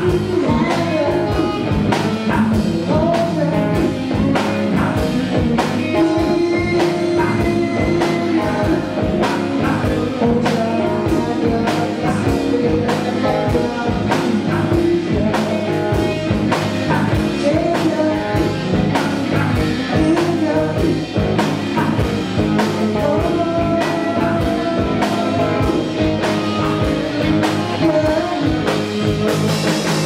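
Rock band playing live: electric guitars, bass guitar and drum kit keeping a steady beat.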